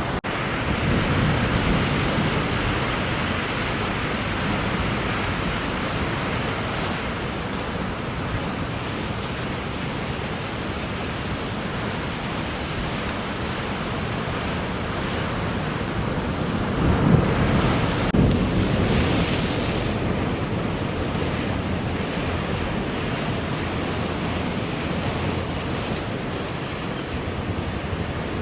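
Ocean surf breaking and washing, with wind buffeting the microphone; the wind or surf swells louder for a couple of seconds past the middle.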